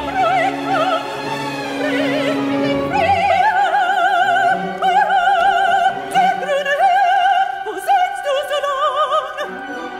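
Operatic singing over an orchestra: a high voice with wide vibrato holding long notes above sustained strings.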